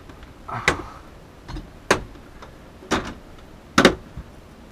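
Plastic front panel of a Mitsubishi mini-split indoor unit being pressed shut, snapping into its latches with four sharp clicks about a second apart.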